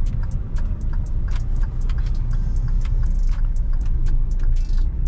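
Cabin sound of a 2019 Hyundai Creta diesel on the move: a steady low engine and road rumble. Many short sharp ticks come through it, a few every second.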